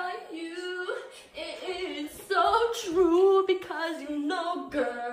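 A woman singing, her voice carrying with little or no accompaniment: held notes that slide up and down in pitch, with a short break a little over a second in and the loudest notes a little past the middle.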